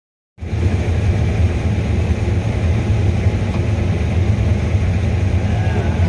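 Combine harvester running in the field with its corn head harvesting: a steady low drone of the engine and threshing machinery, heard from inside the cab. It starts abruptly just under half a second in.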